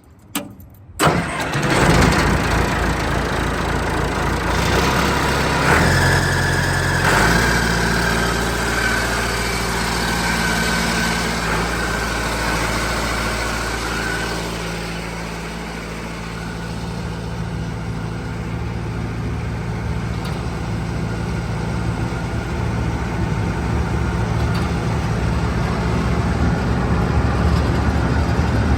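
Vermeer wood chipper's engine starting about a second in and then running steadily. Its speed changes around six seconds in, with a whine over the engine for several seconds after.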